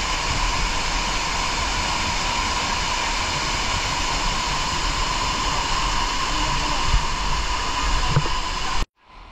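Waterfall rushing steadily at close range, water pouring down a broad cascade over rock. It cuts off abruptly near the end.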